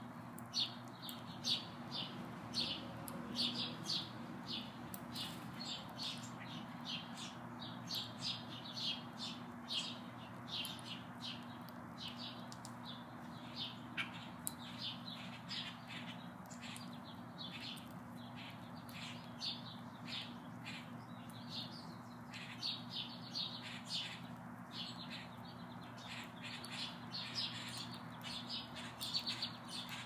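House sparrows chirping over and over, short chirps coming about two a second, with a steady low hum underneath.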